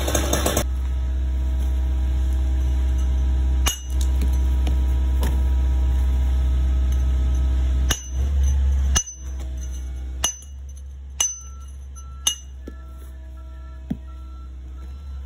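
Hammer driving a steel chisel to dress a sandstone block: sharp, ringing metallic strikes, one about four seconds in and then six more about a second apart in the second half, over a steady low rumble.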